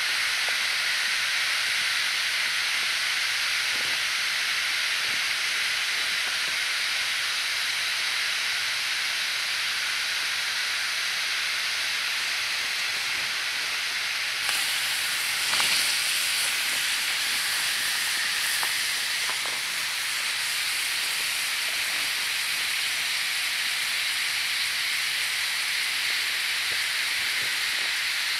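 Fire-heated stones hissing and steaming in water in a birch bark container during stone boiling: a steady hiss. It grows brighter about halfway through as another hot rock is lowered in with stick tongs.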